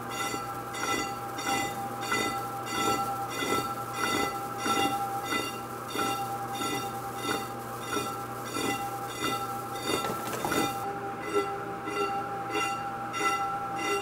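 Metal lathe facing an 18-inch metal disc with a sharp insert. The cut is interrupted, so the tool skips about half the disc each turn, giving a regular pulsing beat. Over the beat rings a steady high harmonic ringing, which spoils the finish.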